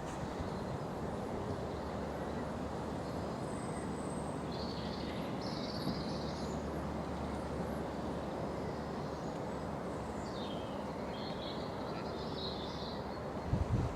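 Small birds calling over a steady low background rumble. There is a high thin note about four seconds in, and bursts of twittering come just after it and again in the second half.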